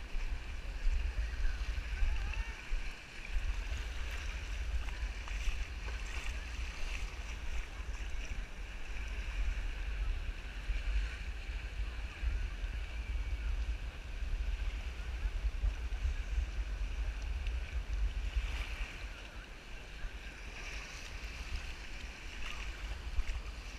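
Wind rumbling on an action camera's microphone, over a faint steady wash of beach ambience: small waves lapping at the shore and distant voices of bathers.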